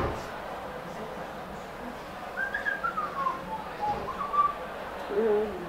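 A person whistling a few notes that step downward, about two seconds in, then a short higher whistled note a second later, with a brief low hum near the end. A soft knock at the very start.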